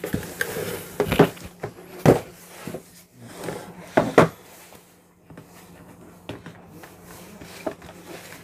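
Cardboard packaging being handled: the boxed gimbal is lifted out of a cardboard shipping carton and set down on a desk, with several sharp knocks and scrapes in the first half, then only light handling sounds.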